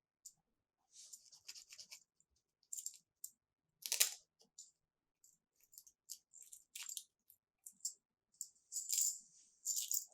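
Plastic toy pieces and packaging being handled: short bursts of crinkly rustling with sharp clicks and taps. The loudest is a single click about four seconds in, and longer rustling comes near the end.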